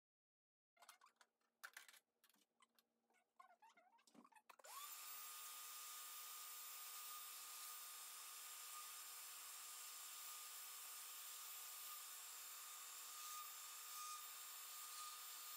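Scattered clicks and knocks of handling, then about four and a half seconds in a shop vacuum switches on and runs steadily with a steady whine, its hose held inside the bandsaw's open wheel housing to clear sawdust.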